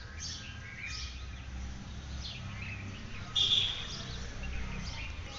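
Birds chirping in short, high calls, several sweeping downward, with one louder call about three and a half seconds in, over a low background rumble.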